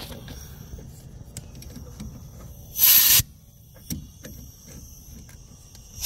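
A handheld blowgun fires one short, loud blast of nitrogen into a copper refrigerant line, hissing for under half a second about three seconds in, to blow debris out of a restricted line. A second, longer blast starts at the very end.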